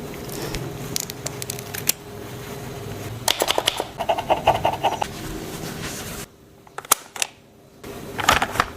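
Packaging being handled: scattered clicks, taps and crackling rustles, over a steady low hum that cuts off about six seconds in.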